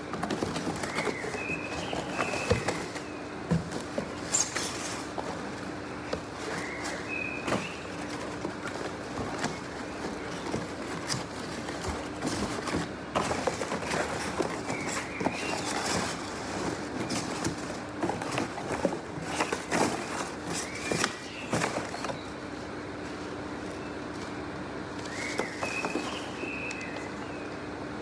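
Cardboard packaging and plastic wrap rustling and crinkling as a boxed grill is unpacked by hand, with irregular crackles and knocks that stop about three-quarters of the way through. Short chirps recur in the background over a steady low hum.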